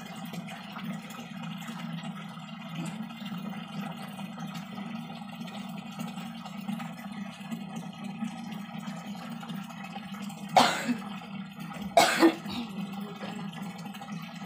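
Water running steadily from a pipe into a plastic barrel. Near the end a person coughs twice, about a second and a half apart.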